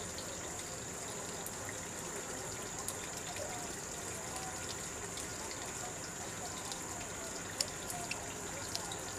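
Steady rush of running water with a constant high-pitched whine over it and a few faint clicks.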